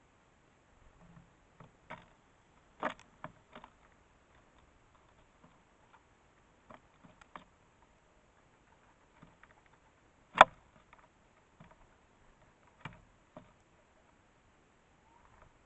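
Irregular taps and clicks of a house sparrow pecking and moving about on a bird-feeder camera, with one sharp knock about ten seconds in.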